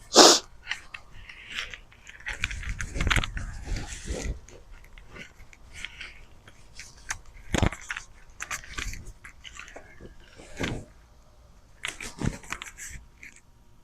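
Soil crunching and rustling as a potato bed is dug through, in irregular scrapes with a few sharper knocks.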